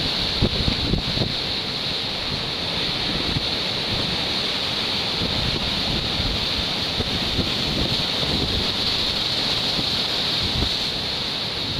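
Wind buffeting the microphone in uneven low gusts over a steady hiss of sea surf.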